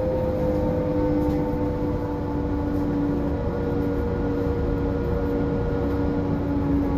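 Solaris Trollino 12M trolleybus's Emit STDa 280-6B electric traction motor whining steadily under way, its pitch sinking slowly, over low road rumble.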